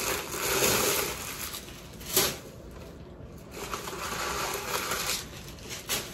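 White paper stuffing crinkling and rustling as it is handled inside a leather crossbody bag, with two short sharp handling knocks, one about two seconds in and one near the end.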